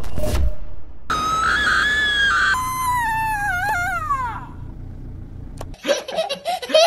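A long, high-pitched scream, held for about a second and a half, then sliding down in pitch and trailing off, over a low steady rumble. About six seconds in, a toddler starts giggling in quick, jumpy peals.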